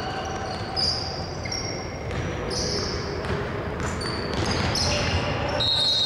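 Basketball game sounds on a hardwood court in a large, echoing gym: sneakers squeak in short high chirps and the ball is dribbled. A held high-pitched tone starts near the end.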